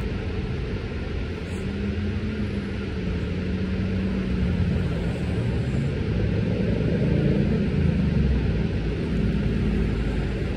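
City street traffic: the steady noise of passing vehicles, with an engine hum that rises and falls as cars and buses go by.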